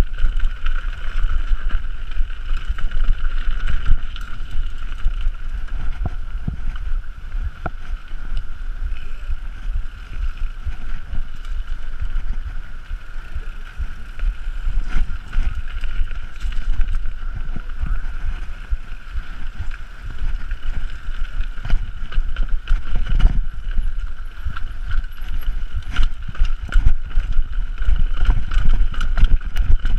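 Mountain bike descending a rocky dirt trail: wind buffeting the camera microphone, tyres rumbling and the bike rattling and knocking over rocks and roots, under a steady high buzz.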